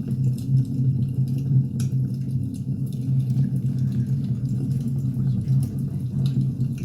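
Wood fire burning, with frequent small crackles and pops over a steady low roar.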